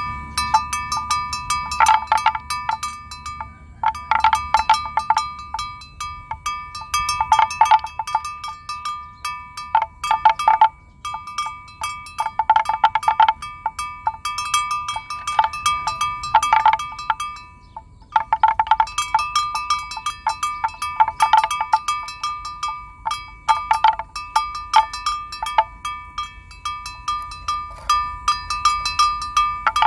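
Bell on a grazing water buffalo clanking irregularly and ringing as the animal moves its head to feed, with a couple of short breaks.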